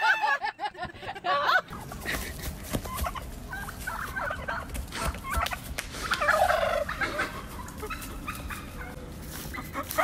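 Domestic tom turkey gobbling in repeated rattling calls, loudest about six to seven seconds in, over a noisy outdoor background.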